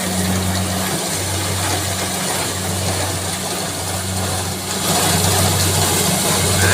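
Rice reaper's engine running steadily at work, with a hiss above the hum, growing louder about five seconds in.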